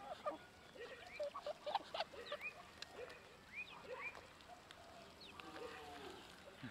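Animal chirps and squeaks: many short, high chirping calls in quick succession, with a few faint clicks.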